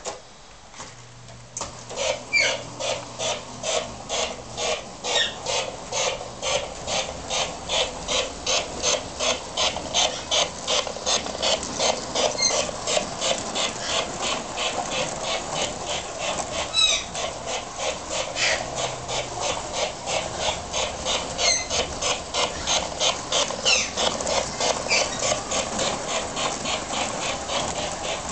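Liberty Lines 600E Hudson model steam locomotive's sound unit chuffing in a steady rhythm, starting about two seconds in and quickening slightly to about three chuffs a second as the engine gets under way.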